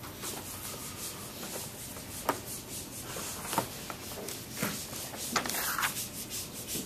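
A felt whiteboard eraser rubbed back and forth across a whiteboard in repeated strokes, wiping it clean, with a couple of sharp knocks partway through.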